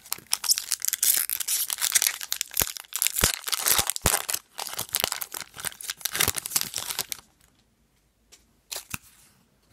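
A foil hockey-card pack wrapper crinkling and tearing open, a dense run of sharp crackles that stops about seven seconds in, followed by one brief rustle near the end.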